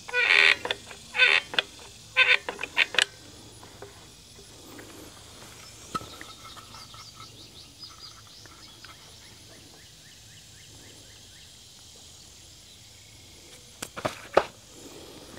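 Several short sounds from a caulking gun squeezing out wood glue in the first few seconds, then a faint bird trill over a quiet background, and two brief knocks near the end.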